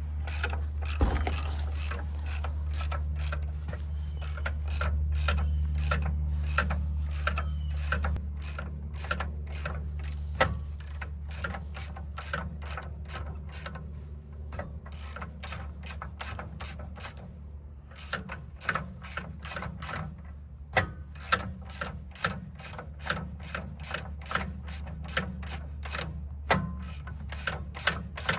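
Ratchet wrench clicking steadily, about two clicks a second, as it backs off the track tensioner bolt on a Vermeer SC48TX stump grinder to relieve the tension on its track. The clicks pause briefly past the middle, then come back sharper. A steady low hum runs underneath.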